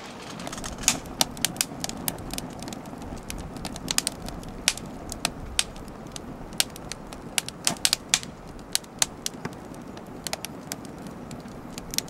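Wood fire of split firewood in a firebrick hearth catching and burning: irregular sharp crackles and pops over a low steady rush of flame.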